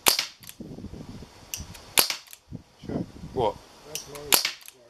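Air gun shots: three sharp cracks about two seconds apart, with fainter clicks between them.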